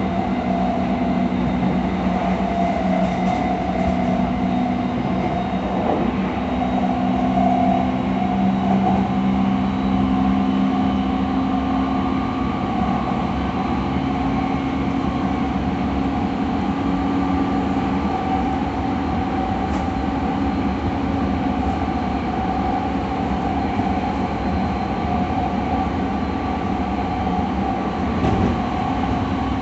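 JR E217 series electric train heard from inside the passenger car, running steadily at speed: a constant rumble of wheels on rail with a steady hum of traction motor tones that drift slightly in pitch, and an occasional faint knock from the rails.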